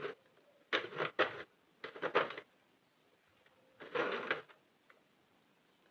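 Plastic needles of a Sentro 48-needle hand knitting machine clicking and rattling as they are worked by hand, in three short bursts.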